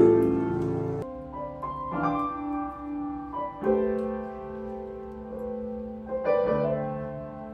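Slow background piano music: held notes and chords that change every second or two.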